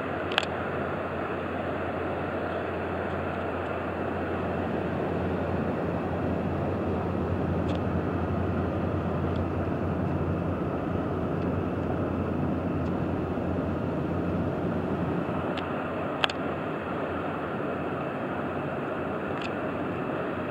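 Steady low drone of inland barges' diesel engines passing on the river, under a wash of wind and water noise, a little louder in the middle. Two sharp clicks, one just after the start and one about three-quarters of the way through.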